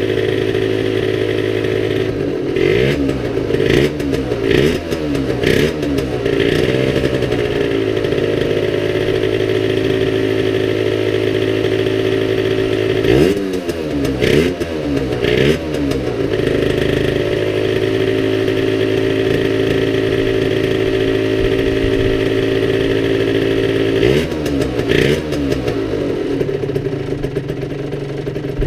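2010 Yamaha TZR50's 50cc single-cylinder two-stroke engine idling while it warms up after a cold start, blipped several times in quick succession about two seconds in, three more times around the middle, and twice near the end, each rev rising and falling straight back to idle.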